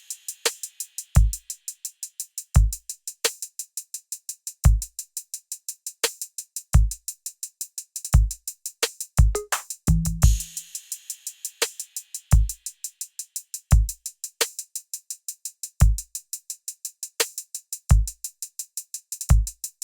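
Instrumental hip hop beat from a drum machine: deep booming kick drums about every second or so, rapid hi-hat ticks and occasional snare hits, with a short low bass note about halfway through. No vocals.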